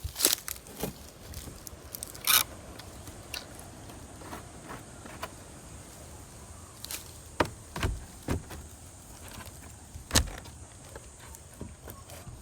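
Scattered knocks, clicks and scrapes of someone moving about and handling things, over a faint steady hiss; the loudest knocks come about two seconds in and about ten seconds in.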